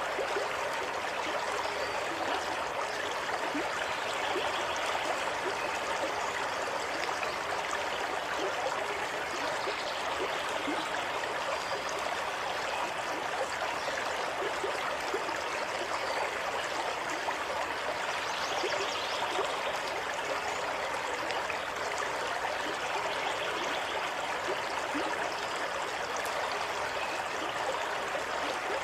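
Running water: a stream flowing and trickling steadily, with small gurgles.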